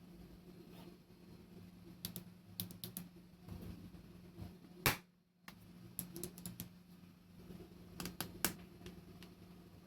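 Scattered sharp clicks and taps of hard 3D-printed plastic parts being handled and fitted together, coming in small clusters with the loudest about five seconds in, over a low steady hum.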